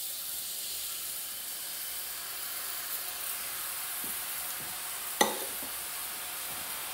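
Chicken broth sizzling steadily as it hits a hot butter-and-flour roux in a cast-iron skillet, an even hiss. A single sharp metallic clink about five seconds in.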